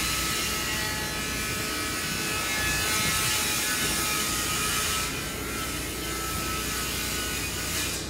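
Steady whine of a small motor-driven machine with a hiss; the hiss eases off about five seconds in.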